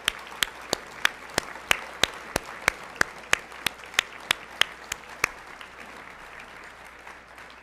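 Audience applause, with one person's loud, evenly spaced hand claps close to the microphone at about three a second that stop about five seconds in; the applause then dies away.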